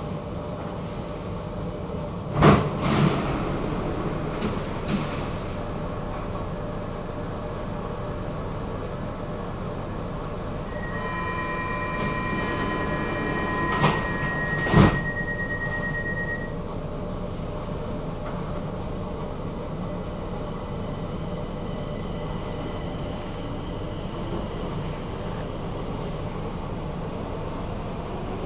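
Stockholm metro train running with a steady rumble. Two pairs of sharp clacks come about two and a half seconds in and again about fourteen seconds in, and a high steady whine is heard from about eleven to sixteen seconds in.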